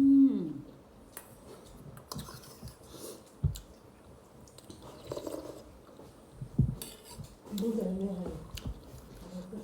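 A person eating chicken close to the microphone: chewing, with scattered light clicks and knocks of cutlery and dishes. Brief wordless voice sounds come right at the start, about halfway through, and again near the end.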